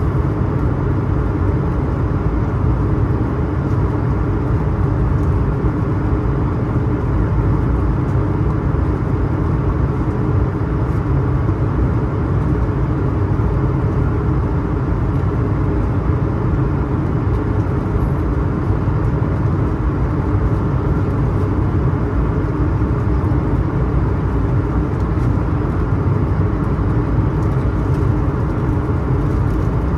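Steady cabin noise inside an Airbus A220-300 in flight: a low, even rumble and rush of airflow and its Pratt & Whitney PW1500G geared turbofan engines.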